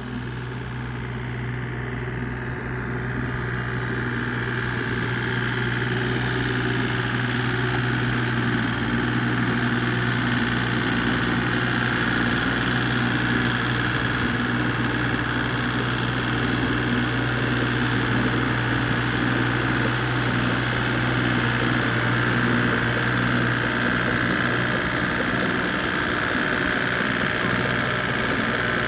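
Small farm tractor's engine running steadily, getting louder over the first few seconds and then holding an even note.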